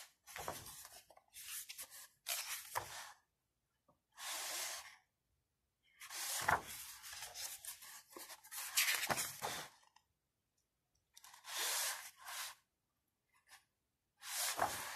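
Photobook pages being handled and turned by hand: a series of short paper rustles with a few sharp clicks, separated by brief pauses.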